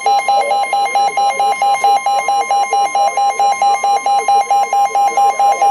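NOAA weather radio alert: a rapid, loud beeping alarm of about seven beeps a second, over a steady 1050 Hz warning alarm tone that signals an incoming weather warning.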